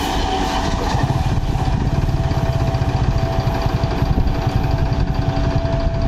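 An electric multiple unit local train receding, its running noise fading with a faint steady whine. From about a second in, a steady, fast-pulsing low rumble is the loudest sound.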